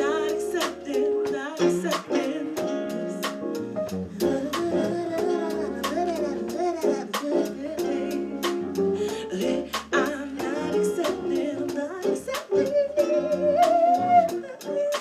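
Live music: a voice singing over a strummed string instrument, with a steady beat of sharp strokes.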